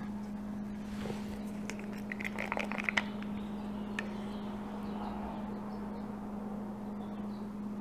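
Small clicks and taps of plastic paint cups and a stir stick being handled, a quick run of them about two to three seconds in and a single tick a second later, over a steady low hum.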